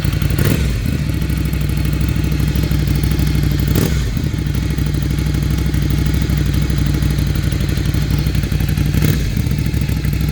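Ducati Monster 797's air-cooled L-twin engine idling steadily, with three short throttle blips: about half a second in, about four seconds in, and near the end.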